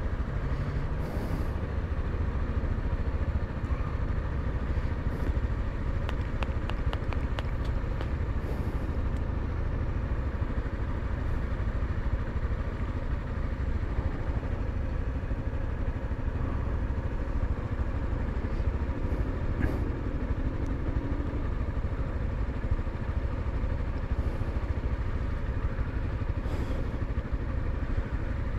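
Honda XRE 300's single-cylinder four-stroke engine idling steadily while the motorcycle stands at a traffic light. About six seconds in there is a short run of faint, evenly spaced ticks.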